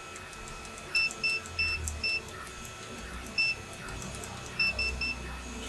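Vichy multimeter's continuity beeper giving short, uneven beeps, about eight in small groups, as a keyboard key switch is tested: the beep comes only now and then, the sign of a poorly contacting switch, judged the worst one of the lot.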